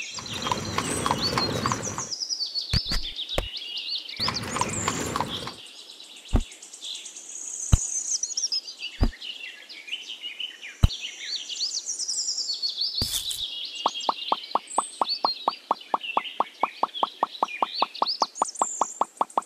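Birds chirping and singing throughout, with a few sharp knocks as small pebbles are set down. There are two bursts of rustling noise in the first six seconds, and from about three-quarters of the way through, a fast even ticking, about five a second.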